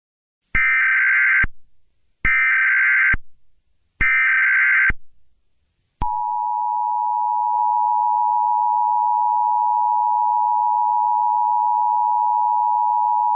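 Emergency Alert System tones: three short bursts of digital SAME header data tones, about a second each, then a steady two-tone attention signal that starts about six seconds in, marking the start of an emergency alert.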